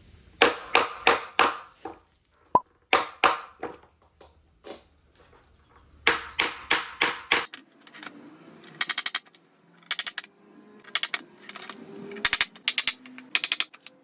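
Runs of sharp knocks, several a second with short pauses between, giving way in the second half to brief, very fast rattling bursts of strikes.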